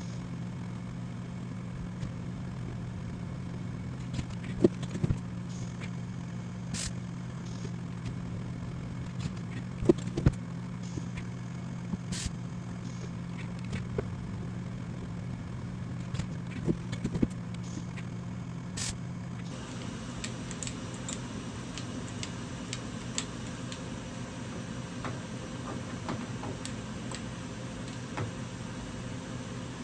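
Steady low machine-shop hum with scattered sharp clicks and knocks, like tools or metal parts being handled. The background changes abruptly about two-thirds of the way through.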